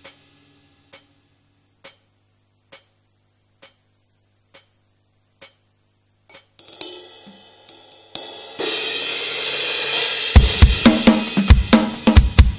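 Drums-only track from an electronic drum kit: sparse, evenly spaced light hi-hat ticks just under a second apart, then swelling cymbal hits building into a steady cymbal wash, and about ten seconds in the full kit enters with a driving kick-and-snare rock groove.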